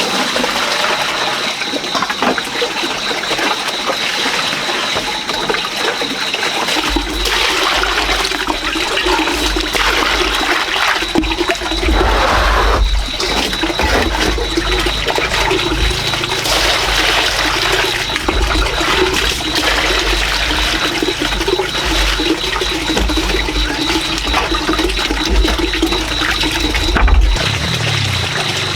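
Water running and splashing steadily. A low rumble joins about seven seconds in and eases near the end.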